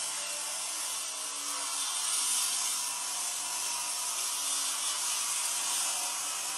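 Electric angle grinder running steadily while cutting into a masonry wall, a continuous grinding noise.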